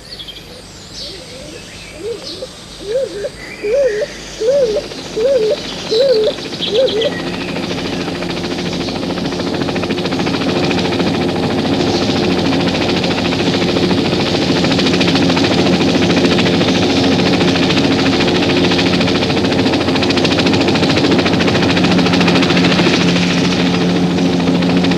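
A series of about eight short warbling calls, followed by a steady engine-like drone that builds in loudness over several seconds and then holds.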